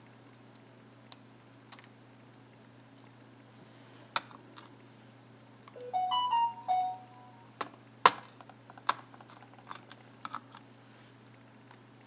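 Small sharp clicks and taps of tweezers on lock pins, springs and the lock core as the lock is taken apart, scattered irregularly, with one louder click about eight seconds in. Around six seconds in there is a brief run of a few pitched notes stepping up and down.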